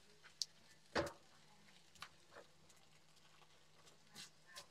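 Faint, scattered taps and scrapes of a spatula stirring linguine and mussels in a nonstick wok, the loudest knock about a second in.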